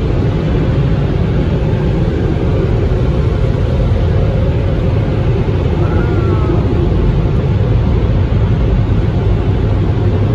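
Steady low rumble and hiss heard inside a car's cabin as it rolls out of an automatic car wash, with a faint short falling whistle about six seconds in.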